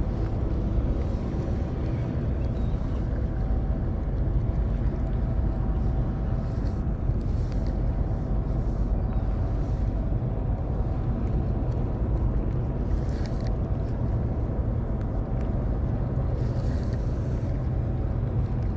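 Steady low engine rumble with a faint even hum.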